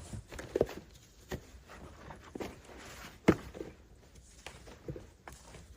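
Irregular footsteps and soft knocks, a few spread across the stretch, with the loudest knock a little past halfway.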